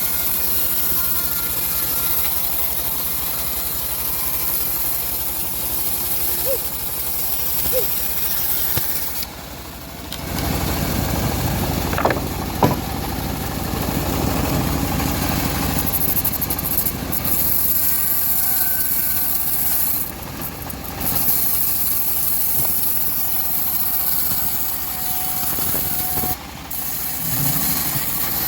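Homemade bandsaw mill running steadily as it saws through a hard teak log, its sound dipping briefly a few times.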